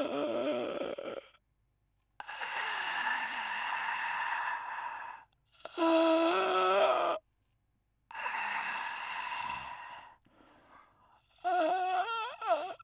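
A man's voice imitating snoring. A short pitched snort-like sound is followed by a pause and a long breathy exhale of about three seconds, twice over. Quick wavering vocal sounds come near the end.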